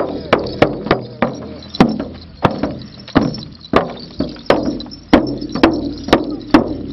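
A Mongolian shaman's large hand-held frame drum beaten with a stick in a steady ritual beat, about two strokes a second, each stroke ringing briefly.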